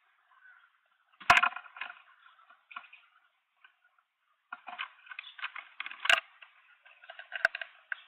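A green wood hoopoe's claws scrabbling and scratching on a wooden nest box as it clings at the entrance hole and squeezes inside. There are irregular bursts of scratching and three sharp knocks: one about a second in, one about six seconds in and one near the end.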